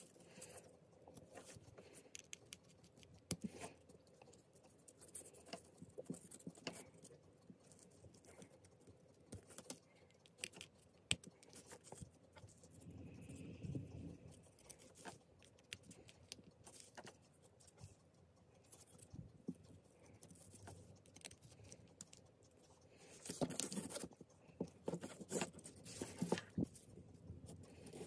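Faint small clicks and rustles of jumper wires being handled and fitted into the screw terminals of an Arduino Nano carrier board, with a louder run of clicks near the end.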